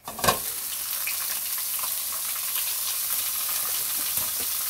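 Sliced smoked duck landing in a hot oiled nonstick pan and sizzling: a loud burst as the meat hits the pan about a quarter second in, then a steady frying hiss.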